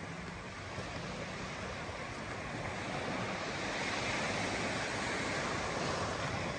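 Small waves washing in on a sandy beach: a steady rush of surf that swells a few seconds in.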